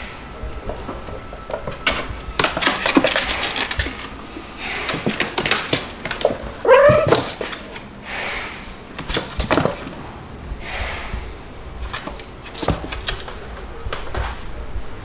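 Cats playing and scuffling on a wooden floor: irregular scratching, thumps and knocks, with one short cat meow about seven seconds in.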